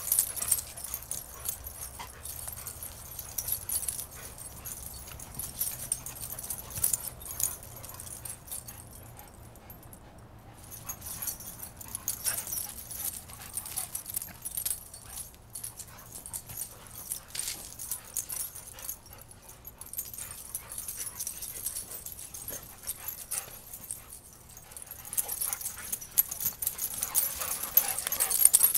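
Dogs play-wrestling on wood-chip mulch: paws scuffling and rustling through the chips, with dog sounds mixed in. The scuffling is loudest at the start and again over the last few seconds.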